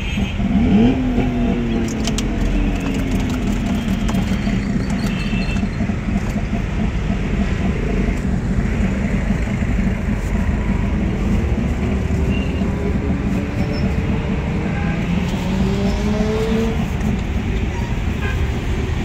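Street traffic: a steady rumble of motor vehicles, with engines rising and falling in pitch as vehicles pass and rev.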